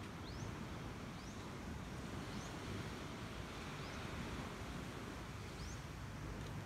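A bird repeating a short, high rising chirp every second or two, over a steady low outdoor rumble.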